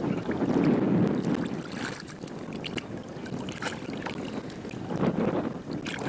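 Wind buffeting the microphone out on an open boat, a rumbling rush that swells and fades, with a few brief clicks or knocks scattered through it.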